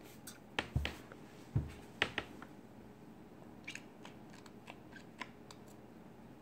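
Small plastic items, a dropper and a cup, handled on a countertop: a cluster of light clicks and knocks with two dull thumps in the first two seconds, then a few fainter ticks.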